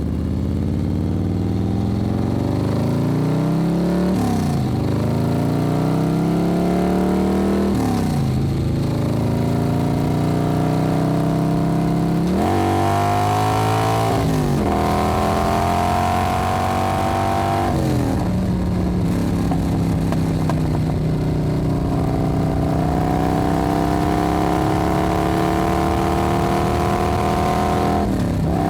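Motorcycle engine pulling through the gears while riding: the revs climb, fall sharply at each upshift, and climb again, several times over, with a longer, slower climb before a final shift near the end.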